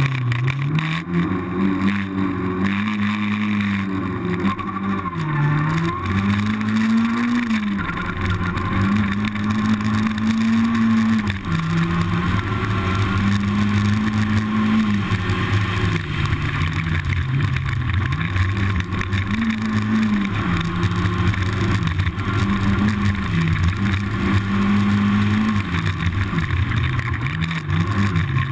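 Racing engine of a rally-raid vehicle running hard under sustained load. Its pitch repeatedly climbs, holds and drops back sharply at each gear change.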